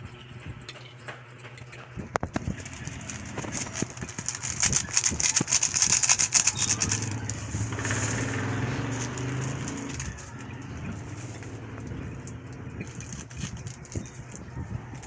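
Metal spoon scraping and clinking against a bowl and a steel pot while chopped fried pork is mixed with its sauce, with a dense run of quick scrapes a few seconds in. A low hum swells and fades in the middle.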